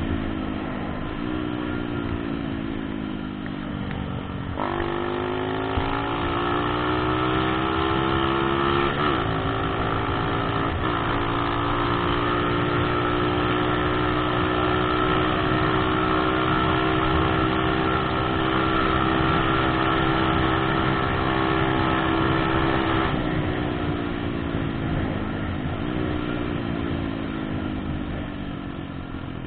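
125 cc motocross bike engine heard from the bike, with wind and road noise. The revs fall at first, jump and climb from about four seconds in with two quick breaks like gear changes, then run steady at speed. Near the end the revs drop away as the throttle closes, with one brief blip.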